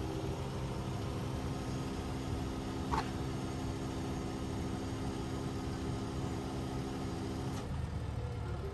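Crane truck's diesel engine running steadily, driving the Fassi knuckle-boom crane's hydraulics, which add a steady low whine under the load of the slung boat. The whine cuts off suddenly near the end. There is a brief squeak about three seconds in.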